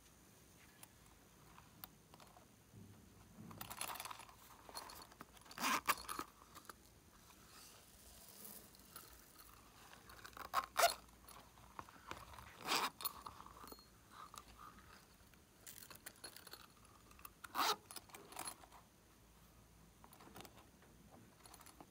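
A zippered watermelon-shaped case being handled and unzipped: a few sharp clicks and short rasps of the zipper, with quiet rustling between.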